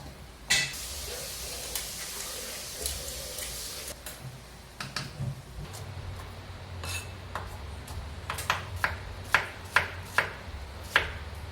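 A spatula stirring chicken wings in a frying pan, clinking and scraping against the pan, with sharp knocks about three a second in the second half. A sizzle of the wings frying in butter runs under the first few seconds.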